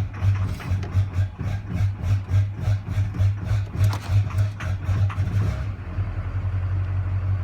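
2003 Chevy Duramax LB7 6.6-litre V8 turbodiesel idling roughly: an uneven, pulsing clatter of several beats a second that turns steadier near the end. It is the surging idle that new injectors and a new head gasket have not cured, and the owner suspects air getting into the fuel.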